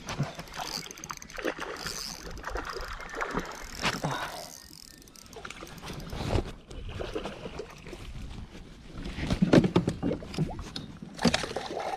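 Water splashing and sloshing beside a kayak as a hooked bass is fought to the boat and landed, with irregular surges that are loudest about three-quarters of the way through and a sharp knock shortly after.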